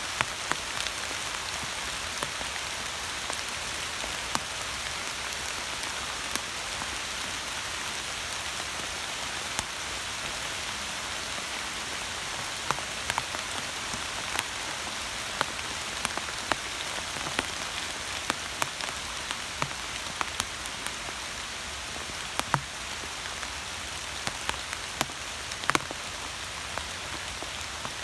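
Steady rain falling, a continuous hiss with single drops tapping sharply close by at irregular moments, more often in the second half.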